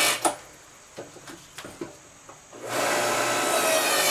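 Earthquake 5-ton electric log splitter's motor and hydraulic pump running, cutting off just after the start. A quieter pause follows with a few light knocks, then the motor starts up again about two and a half seconds in. The ram is pushing against a wet log that it fails to split.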